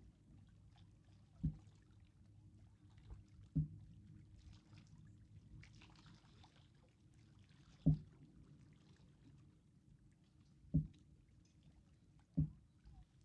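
Distant Falcon 9 rocket ascending: a steady low rumble from its first-stage engines, broken by about five sharp, irregularly spaced low thumps.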